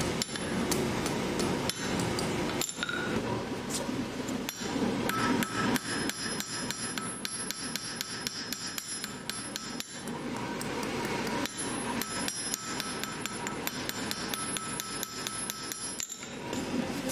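Hand hammer striking a small red-hot steel workpiece on an anvil: a quick, continuous run of blows with some metallic ring between them.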